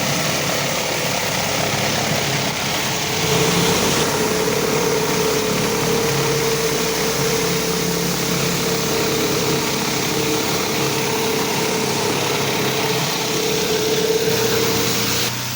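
Gas pressure washer running, with the steady hiss of high-pressure water sprayed through a surface cleaner onto the floor. A steady whine joins about three seconds in, and the spray stops just before the end.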